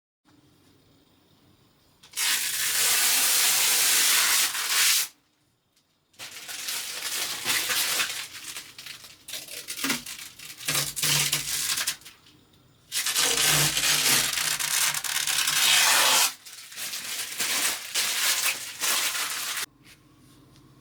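Rough rubbing or scraping noise in four long bursts of a few seconds each, with short pauses between.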